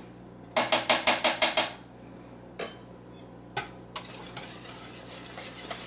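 A wire whisk beating fast against the inside of a stainless steel stockpot, about seven strokes a second for a little over a second, as a scoop of butter-and-flour roux is whisked into thin gravy to thicken it. Two single metal knocks follow, then a soft steady hiss from the simmering gravy.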